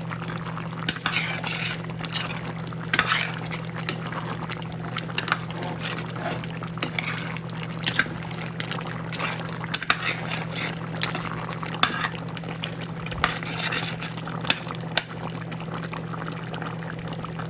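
Pot of curry chicken stew bubbling on the stove: thick sauce simmering with irregular pops and splutters, over a steady low hum.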